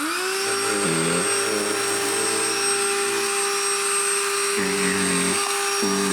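Black & Decker Dustbuster Pet handheld vacuum switched on, its motor spinning up and settling into a steady high whine with a rushing of air. A lower droning tone comes and goes several times over the whine as it works on the mess.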